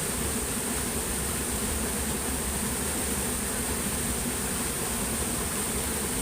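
Steady high-pitched insect chorus with a constant low rumble of outdoor background noise beneath it.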